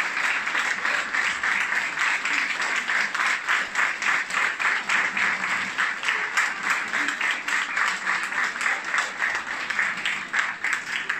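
Concert audience applauding a choir, the clapping falling into a steady rhythm of about three claps a second, clapping in unison, a few seconds in and easing off near the end.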